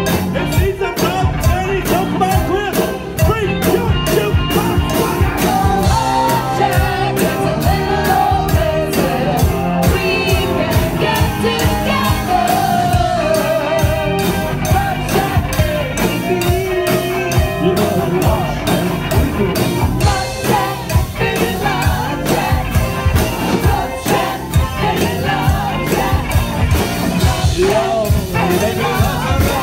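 Live rock band playing with a singer over electric guitar and drums, a cowbell joining in on a steady beat.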